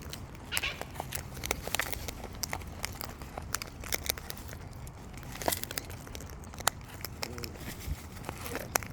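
Irregular small cracks and crunches, several a second, of wild parrots husking seed with their beaks.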